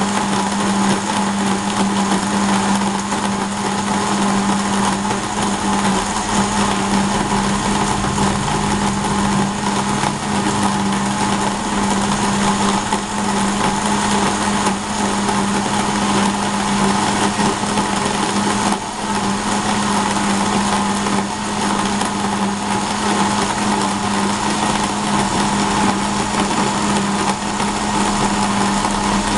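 Electric kitchen blender running steadily at one speed, an even motor whine that does not change.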